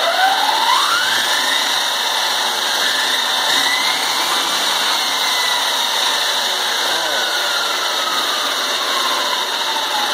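Electric junior dragster's Netgain Impulse 9 electric motor and drivetrain spinning up under throttle. A whine rises steeply over about two seconds, holds high, then falls slowly through the second half as the motor coasts down, over a loud steady rushing mechanical noise.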